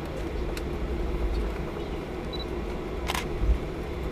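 Cabin noise of a Boeing 737-800 airliner taxiing: a steady low rumble and hum from the engines and rolling gear. A faint click comes about half a second in, and a sharp click about three seconds in.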